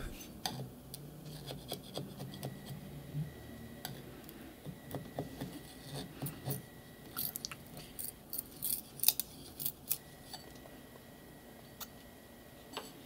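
Thin metal spatula scraping a small printed heart off the textured print bed of a Creality Ender 3 Pro 3D printer: a scatter of faint clicks and scratches, most of them in the second half.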